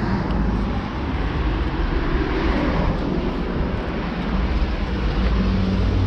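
Steady road traffic noise: a low rumble with hiss over it, growing slightly heavier near the end.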